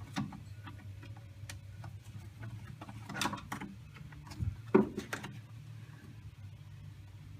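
Light metallic clicks and taps of a screwdriver working the screws that hold the turn-signal and wiper switch on a steering column. A few louder taps come about three seconds in, and a sharp knock a little under five seconds in, over a steady low hum.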